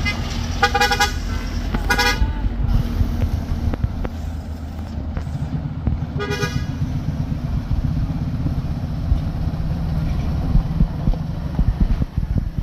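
Heavy vehicle engines running steadily, with a few short horn toots in the first seven seconds.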